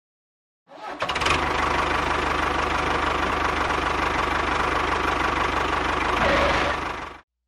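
A tractor engine running steadily at an even pace. It cuts in about a second in and cuts off abruptly near the end, rising slightly just before it stops.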